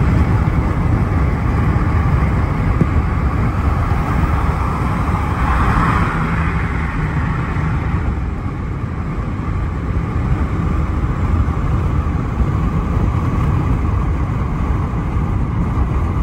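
Steady road and engine noise inside a car travelling at highway speed, strongest in the low rumble, with a brief swell about five to six seconds in.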